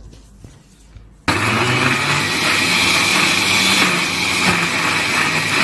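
Electric mixer grinder switching on about a second in and running steadily at full speed with a low hum and a high whine, grinding wet tomato-chilli chutney in its bullet-style jar. A few faint clicks of the jar being handled come before it starts.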